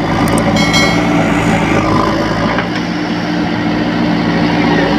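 Diesel engines of a JCB backhoe loader and a John Deere 5036 D tractor running steadily while the loader fills the tractor's trolley. About half a second in there is a brief clatter of earth and stones dropping from the loader bucket into the trolley.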